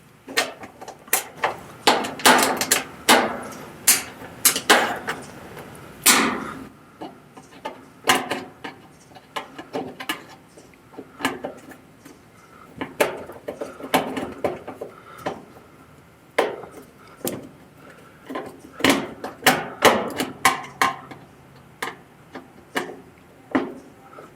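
Irregular clicks, taps and knocks of a screwdriver and screws being worked in by hand, fastening a replacement dryer door switch in place.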